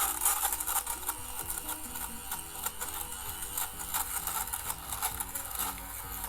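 Xiaomi Mijia rechargeable lint remover (fabric shaver) running, its spinning blades making a rough, grainy buzz as it is pushed over pilled cloth to cut off the fuzz. Soft background music plays underneath.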